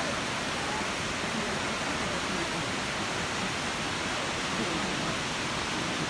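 Nachi Falls waterfall, a steady rush of water plunging down a 133-metre drop.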